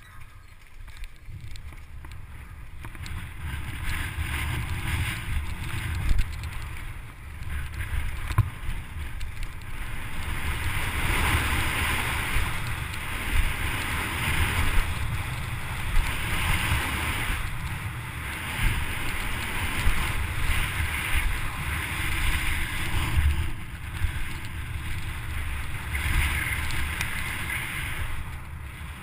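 Wind buffeting a helmet-mounted camera's microphone over the rumble and rattle of a downhill mountain bike running fast on a dirt track, with sharp knocks from bumps. It builds over the first few seconds as speed picks up.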